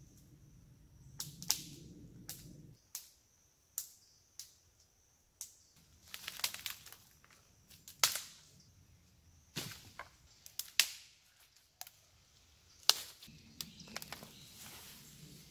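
Dead fallen branches breaking by hand and underfoot: a series of sharp, irregular wood cracks and snaps, the loudest about eight, eleven and thirteen seconds in, with brush rustling between them.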